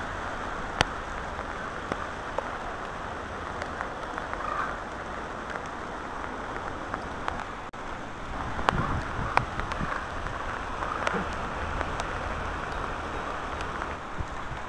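Steady rain falling, with scattered sharp taps of drops close by.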